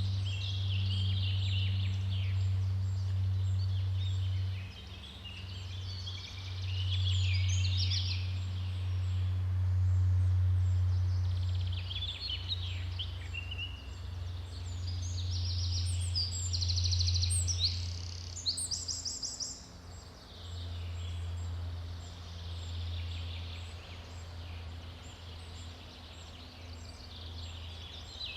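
Forest daytime ambience: several songbirds chirping and trilling in bursts, heard over a steady low rumble.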